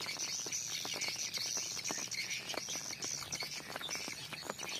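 Steady high-pitched chirring of insects in the surrounding vegetation, with many small clicks and rustles scattered through it.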